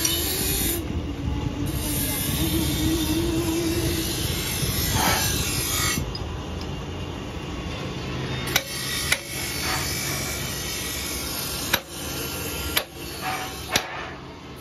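Forging workshop: steady machine noise for the first six seconds, then it drops, and five separate sharp metal strikes follow as steel is worked at the power hammer's die.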